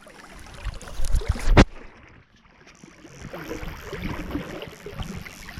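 Flowing river water and wind on the microphone from a drift boat, with a few low bumps and one sharp knock about one and a half seconds in.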